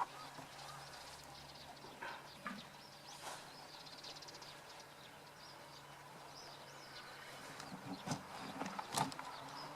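Quiet outdoor ambience with faint bird chirps over a low steady hum, broken by a few light knocks.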